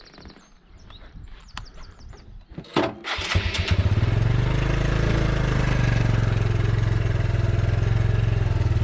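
A motorcycle engine is started about three seconds in and settles into a steady idle. It is preceded by a few faint clicks and high chirps.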